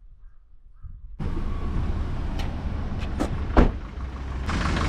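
Motorcycle riding through traffic: steady engine, road and wind noise that cuts in suddenly about a second in, with a few sharp clicks over it.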